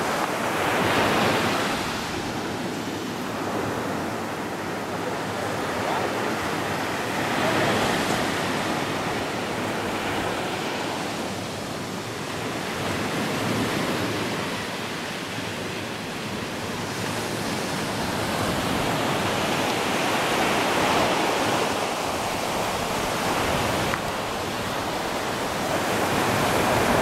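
Sea surf breaking on a sandy beach, a steady rush that swells as a wave comes in roughly every six or seven seconds.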